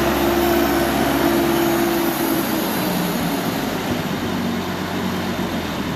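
Massey Ferguson 65 tractor engine running steadily, easing a little in level about halfway through.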